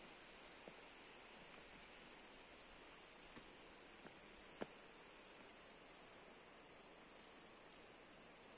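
Faint, steady high-pitched insect chorus, with a few soft clicks, the sharpest about four and a half seconds in.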